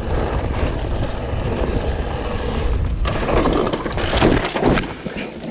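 Mountain bike rolling fast over a rough, rocky trail with a steady low rumble; from about three seconds in a louder stretch of scraping and crunching, easing off near the end.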